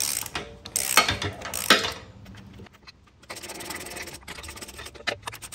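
Hand ratchet clicking in short runs, with a few scrapes of metal on metal, as concrete anchor bolts are run down snug on a car lift post's base plate.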